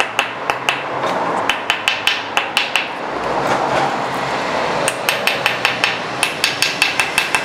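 Hammer tapping a steel brake pad hardware clip down onto a rear brake caliper bracket to seat it fully: sharp metallic taps, several a second, in quick runs with short pauses between.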